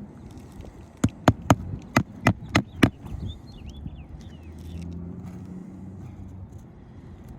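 Hammer driving roofing nails through an asphalt shingle: seven quick sharp strikes in a row about a second in, followed by a low steady rumble.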